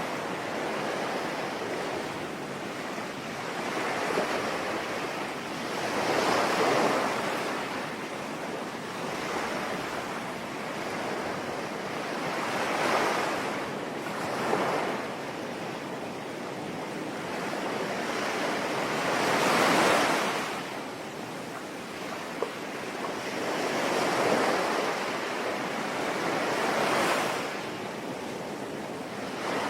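Sea waves breaking and washing in, swelling up every few seconds over a steady hiss of falling rain.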